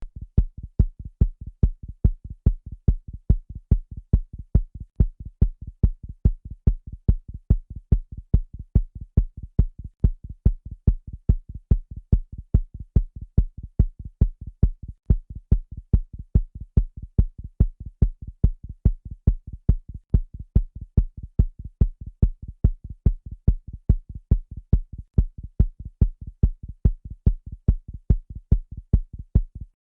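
Fast heartbeat: low, dull thumps in a quick, even rhythm.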